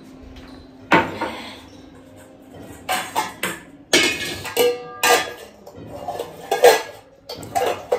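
Dishes and utensils being handled and set down, a series of separate clatters and clinks, several with a short ringing tone.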